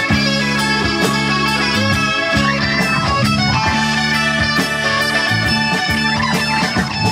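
Live rock band playing: an electric guitar lead with bending notes over acoustic guitar, bass guitar and drums.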